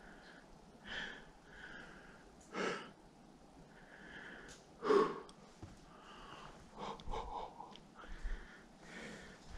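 A person breathing audibly and sniffing close to the microphone, with stronger puffs of breath about 1, 2.5 and 5 seconds in.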